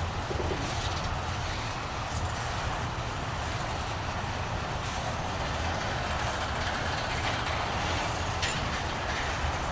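A train rolling past, a steady rolling noise from wheels on rail with no horn or break in it.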